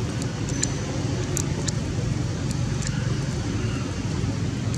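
Steady low background rumble, with a few faint sharp crackles scattered through it.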